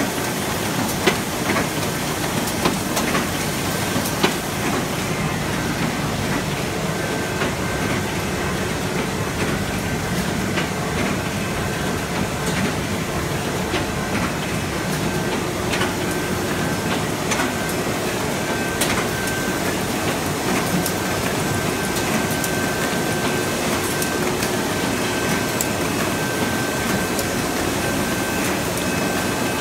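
Fully automatic sheet-fed square-bottom paper bag machine (ZD-QFP20) running in production: a steady mechanical clatter with a constant stream of sharp clicks, a few louder in the first seconds, and a faint thin tone that comes and goes.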